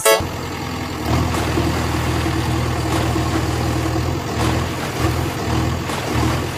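Heavy engine running steadily, a low truck-like rumble that grows a little louder about a second in.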